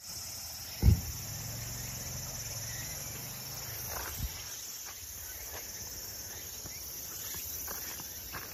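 A steady, high-pitched chorus of insects buzzing in the trees. A loud thump comes about a second in, and a few fainter knocks follow.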